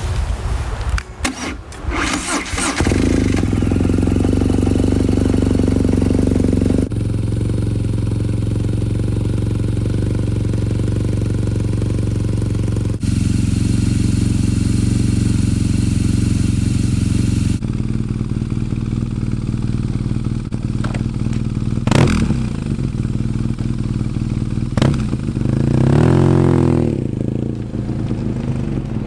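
A 2014 BMW R nineT's air/oil-cooled boxer twin, fitted with a full Akrapovič exhaust, idling steadily with a breathy, guttural exhaust note after a brief clatter at the start. Just over twenty seconds in it is blipped quickly, and a few seconds later it is revved up and let fall back to idle.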